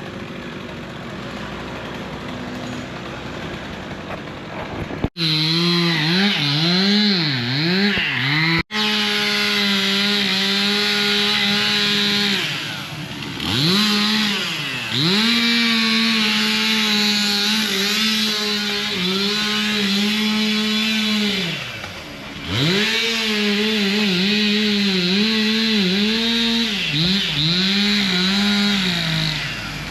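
Chainsaw cutting tree limbs. It runs quieter at first, then from about five seconds in at high revs, its pitch dipping and rising as the throttle is worked and the chain bites into the wood, with two brief drops in the engine note along the way.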